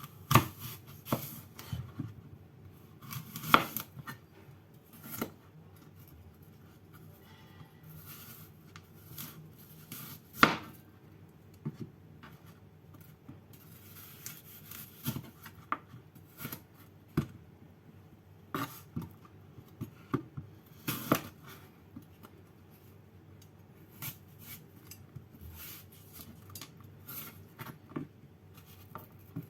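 Kitchen preparation sounds: irregular knocks, clinks and clatter of utensils and dishes being handled.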